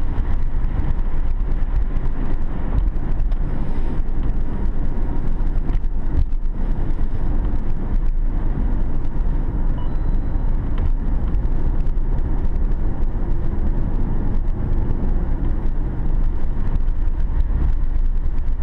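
Car driving along an icy, snow-covered road: a steady deep rumble of engine and tyre noise with a rough, grainy texture.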